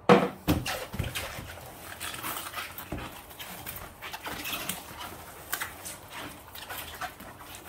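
Stretch film crinkling and rustling as a film-wrapped box is picked up, turned over in the hands and set back down on a table. There is a sharp knock right at the start, then irregular crackles.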